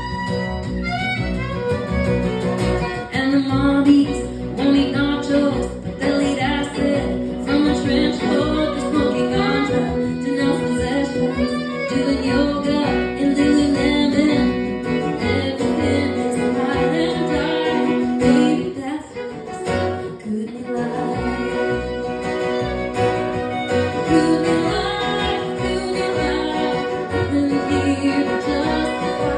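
Live music: a woman singing over string instruments, guitar and a bowed string such as a fiddle, with a short drop in level about two-thirds of the way through.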